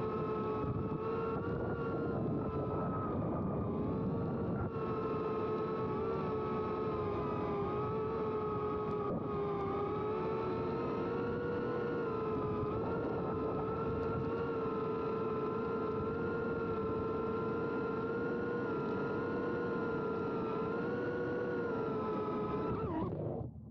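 FPV cinewhoop quadcopter's motors and ducted propellers whining steadily in flight, heard from the camera on board. The pitch wavers a little with throttle, and the sound stops abruptly near the end.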